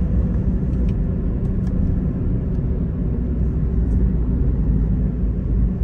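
Steady low rumble of a car driving at motorway speed, heard from inside the cabin: tyre, road and engine noise.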